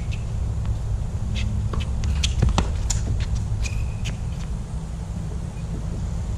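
Outdoor tennis-court ambience between points: a steady low rumble with scattered light taps and clicks, and a brief high squeak near the middle.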